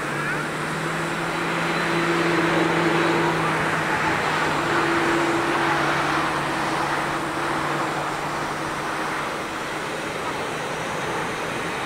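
Boeing 747-400 freighter's four jet engines at take-off thrust, heard from a distance as a steady roar with a low hum under it. The roar swells about two seconds in and eases slightly as the plane climbs away.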